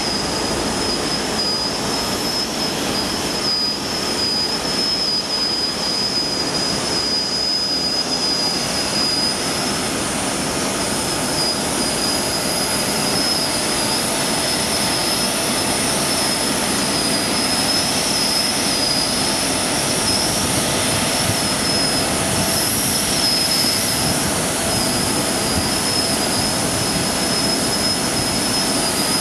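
Aircraft jet turbines running steadily: a constant high-pitched whine over an even rushing noise.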